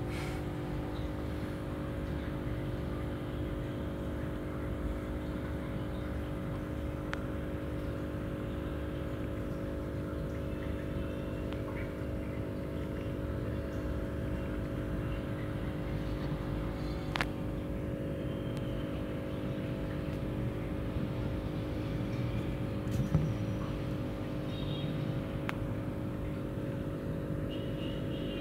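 A steady mechanical hum with a low rumble, unchanging throughout, with a few faint clicks, one sharper about 17 s in and another about 23 s in.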